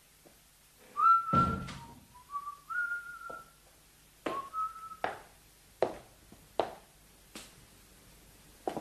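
Someone whistling a few notes of a tune, with a heavy thump about a second in, then footsteps at an even, unhurried pace.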